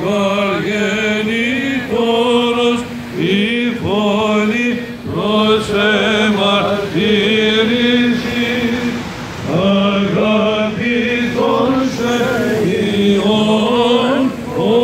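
Byzantine church chant: male voices singing a melody over a steady held drone note (the ison), with short breaks between phrases.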